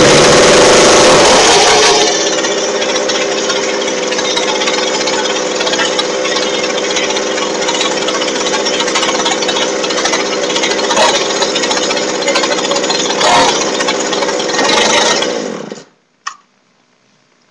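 Jonsered two-stroke chainsaw on a cold start, catching at once and running loudest for the first two seconds, then settling to a steady run with a few brief swells. It cuts out suddenly near the end.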